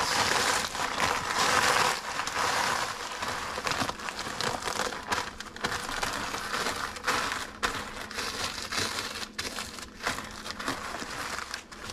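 Saltine crackers being crushed to a powder inside a sealed plastic Ziploc bag: the bag crinkles steadily and the crackers crunch, with many short sharp crunches. It is most intense in the first couple of seconds.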